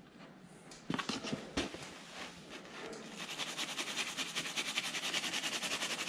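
Stick marker scrubbed rapidly back and forth through a stencil onto a woolpack: a fast, even, scratchy rubbing. It is preceded by two sharp knocks about a second in as the stencil disc is set against the bale.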